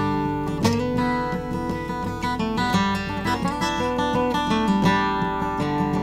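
Background music: an acoustic guitar playing a run of picked notes over chords.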